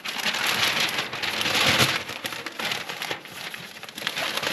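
Newspaper being crumpled by hand, a dense crackling rustle that is loudest in the first two seconds and then goes on more softly.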